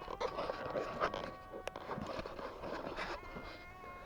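Steady electrical whine of a battery-powered electrofishing rig's inverter, with irregular swishing and splashing of water and one sharp click.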